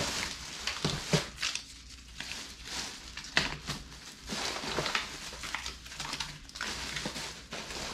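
Plastic food wrappers and packaging crinkling and rustling as packaged sweets are handled, with irregular sharp taps and clicks.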